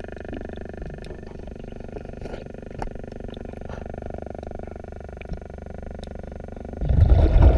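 Underwater sound at a diver's camera: a steady low rumble with scattered faint clicks, then, about seven seconds in, a loud churning rush of bubbles from the diver's exhaled breath.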